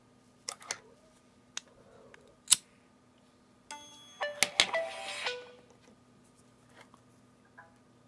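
A few sharp clicks and taps from the phone being handled, the sharpest about two and a half seconds in; then, about four seconds in, the Samsung Galaxy S4 Active plays a short chime of several notes as its AT&T boot animation comes up, the sign of the phone starting up after a restart.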